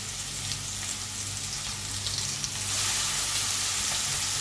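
Marinated chicken leg pieces sizzling in hot oil in a kadhai: a steady frying hiss with light crackles, growing a little louder about halfway through.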